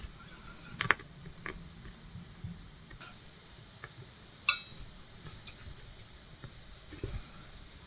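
Faint, scattered clicks and taps of hand cross-stitching: needle and thread worked through fabric and small handling of the hoop and tools. One sharper tap with a brief ring comes about four and a half seconds in.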